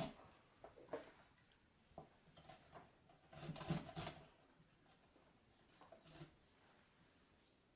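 Quiet kitchen handling noises: scattered light taps and rustles, with a louder cluster about three and a half seconds in.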